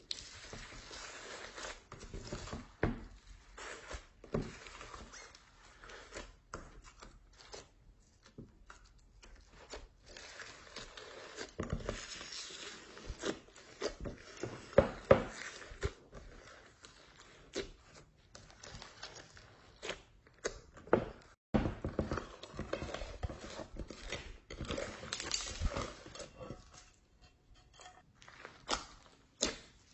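Slime being mixed and squished by hand, giving irregular sticky crackles, clicks and small pops.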